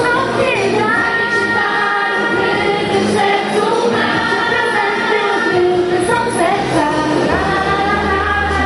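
Mixed choir of teenagers singing into microphones, several voices holding long notes together. A low bass tone comes in about seven seconds in.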